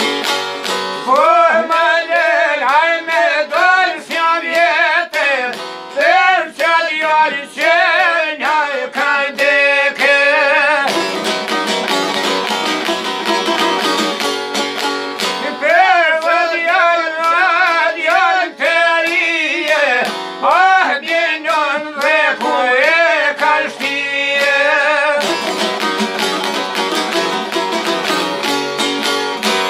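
A man singing a slow, heavily ornamented Albanian folk melody over a strummed long-necked Albanian lute and a second string instrument. The voice pauses twice, about 11 seconds in and again near the end, while the strings keep playing.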